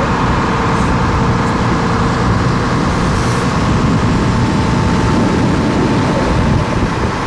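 Motor launch's engine running steadily under way: a constant drone with a faint steady hum over a dense low rumble.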